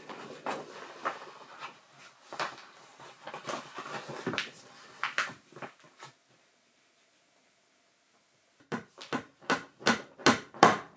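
Irregular knocking and handling noise, then a gap of about two seconds with nothing heard, then a quick run of sharp knocks, about four a second, near the end.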